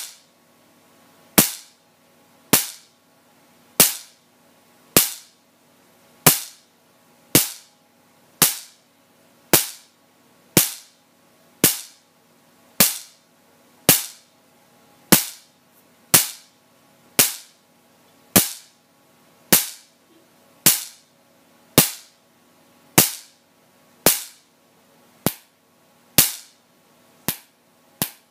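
Homemade Marx generator of about 200,000 volts discharging across a six-inch air gap: a sharp spark crack a little more than once a second, about two dozen in all, coming faster near the end. A faint steady hum runs underneath.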